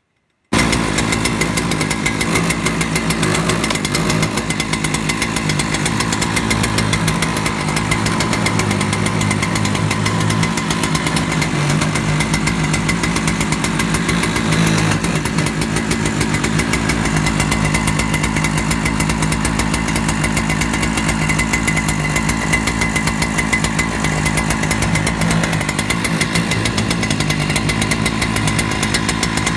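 Husqvarna 3120 chainsaw's large two-stroke engine running steadily at a fairly even speed. The sound cuts in abruptly about half a second in.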